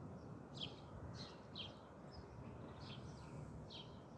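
Garden birds chirping faintly: a series of short, high chirps spaced about half a second to a second apart, over a low steady background hum.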